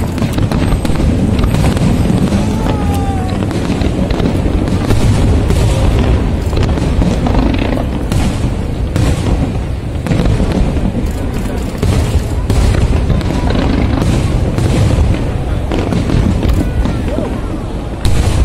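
Aerial fireworks shells bursting one after another, deep booms and crackles over a continuous low rumble, with music playing in the background.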